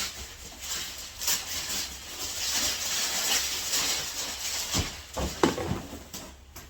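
Paper rustling and tearing as a gift is unwrapped, with a few low knocks about five seconds in.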